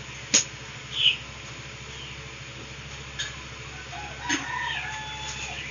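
Birds calling in the background: a few short chirps and calls over a steady low hum, with a sharp click about a third of a second in.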